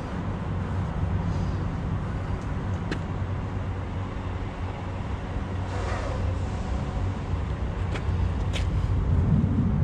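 Steady low rumble of an idling heavy truck engine, with a few faint clicks and a brief rushing noise about six seconds in.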